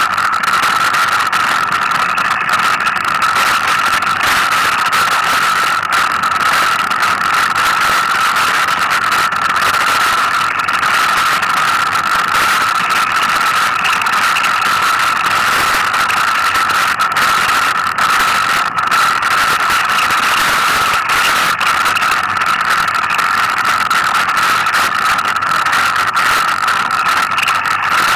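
Mountain bike riding a rough dirt trail: wind and rattling over the bumps, with many small clicks and knocks, and a steady high-pitched whine that holds one pitch throughout.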